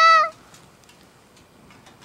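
One short, loud, high-pitched cry, under half a second and nearly steady in pitch, at the very start. After it a wood campfire in a fire stand crackles faintly with scattered small pops.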